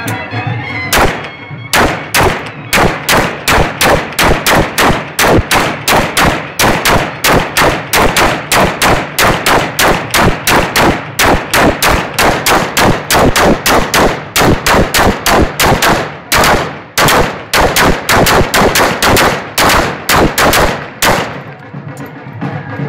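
Rifle, fitted with a drum magazine, fired into the air in a long string of rapid shots, about three to four a second. The shooting starts about a second in, breaks off briefly in the second half, and stops a little before the end.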